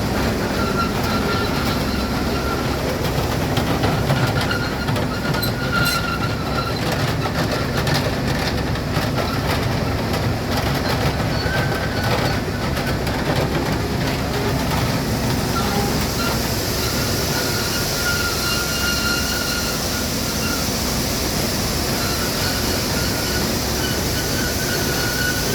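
Corn grain dryer plant running: a steady, loud mechanical din with clattering, and a faint high squeal that comes and goes.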